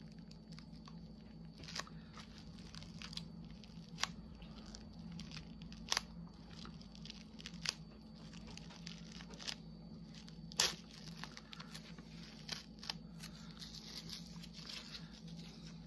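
Plastic cling wrap crinkling and tearing in small irregular crackles as it is picked off the sticky glue of a diamond painting canvas, one crackle louder than the rest about ten seconds in. The wrap is stuck to the glue and tears instead of peeling away cleanly.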